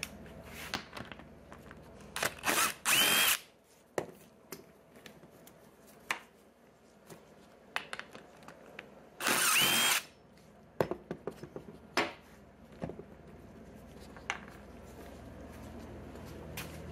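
Cordless DeWalt impact driver with a 7/16 socket backing out the bolts of a golf cart seat hinge: two short bursts of about a second each, about two seconds and nine seconds in. Light knocks and clinks of parts being handled come between the bursts.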